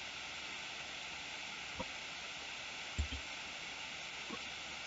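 Faint, steady hiss of a voice-over microphone's noise floor, with a few faint short clicks about two seconds in, a double one at three seconds, and one past four seconds.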